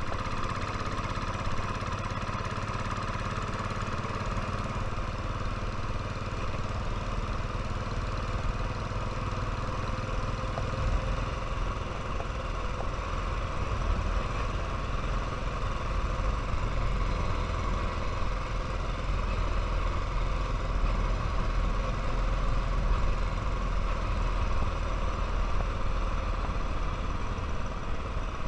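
Royal Enfield motorcycle engine running steadily while riding, growing a little louder about halfway through.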